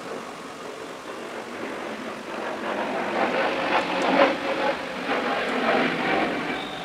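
Motor vehicle noise, swelling about two and a half seconds in and easing off near the end.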